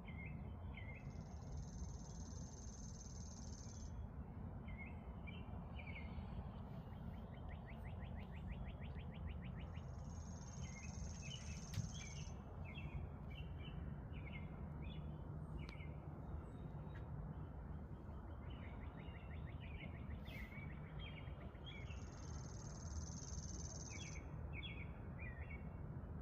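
Songbirds chirping and calling, with many short notes and a couple of fast trills. A high, steady buzz comes three times, about three seconds each, over a constant low background hiss.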